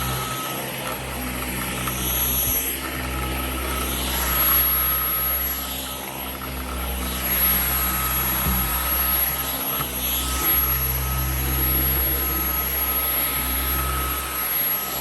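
Dyson V11 Outsize cordless stick vacuum running on carpet: a steady high motor whine over a low rumble, growing louder and softer every couple of seconds.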